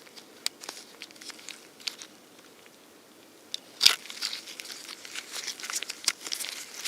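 Small clicks and crackly rustling of wires and a plastic connector being handled as a wire terminal is pulled out and pushed back into another slot, with one sharper click about four seconds in.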